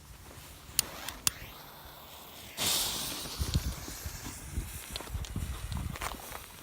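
A fireworks fuse on a salute board lit and hissing: two sharp clicks, then a sudden loud hiss about two and a half seconds in that sputters on and slowly fades, with scattered low thuds.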